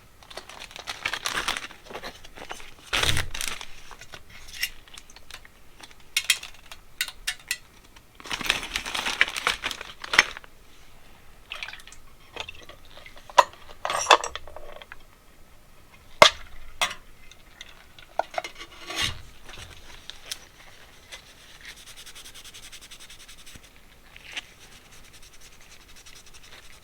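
Small metal carburetor parts being handled on a workbench: scattered clinks and knocks of metal on metal, with stretches of rubbing or scraping.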